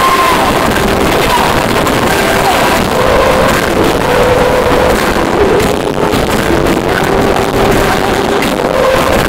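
Live arena concert recorded on a phone, overloaded into a loud, distorted roar of the sound system and crowd, with faint held sung notes showing through.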